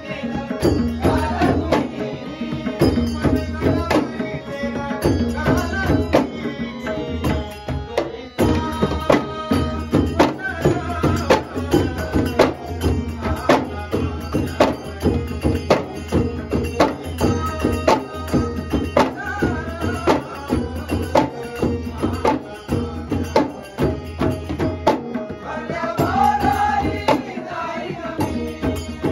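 Konkani ghumat folk music: a group of ghumat clay-pot drums and a barrel drum beaten in a fast, steady rhythm, with harmonium and men singing.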